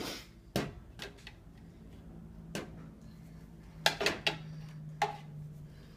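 Dishes and utensils knocking and clinking as they are taken out of a dishwasher, about seven separate knocks with a quick run of three about four seconds in, over a low steady hum.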